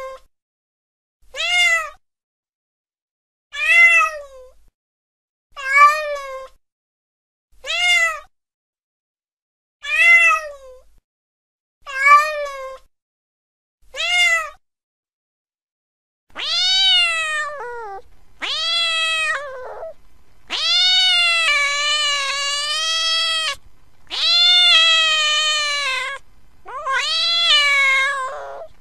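A domestic cat meowing: first seven short meows about two seconds apart, then, about sixteen seconds in, long drawn-out meows one after another, some close to three seconds long.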